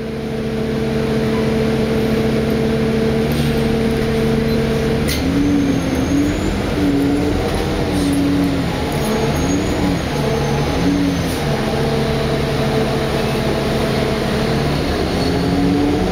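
A Cummins ISL9 diesel bus engine heard from inside the cabin, idling steadily. From about five seconds in, its pitch rises and falls as the bus pulls away.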